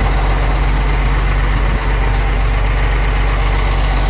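Forklift engine running steadily with a low, even rumble.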